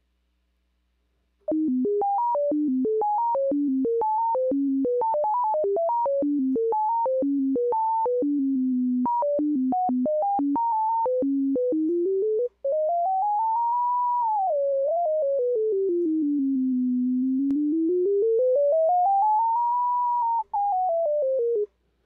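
Arturia ARP 2600 software synthesizer sounding a held sine-wave note. A sine LFO through sample and hold makes the pitch jump in stair steps between low and high, about four steps a second. A little past halfway the steps give way to a slow, smooth wow, the pitch gliding up and down like a siren.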